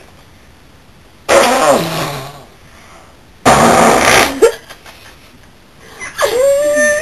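Three loud fake fart noises made by a person, each about a second long. The third has a wavering pitch.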